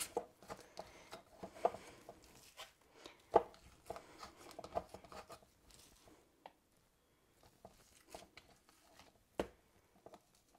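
Faint squishing and rustling of raw ground beef being pressed by hand through a plastic funnel into a glass canning jar, with scattered soft knocks; the loudest knock comes about a third of the way in, another near the end.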